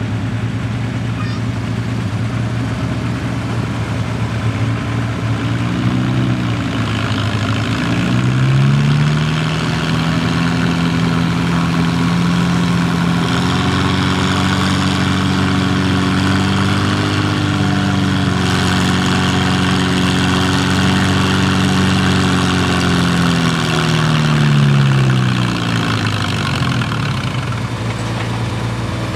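Farmall 350 tractor engine pulling a weight-transfer sled at full load: it revs up a few seconds in, holds a steady high note for about fifteen seconds, then drops back near the end as the pull finishes.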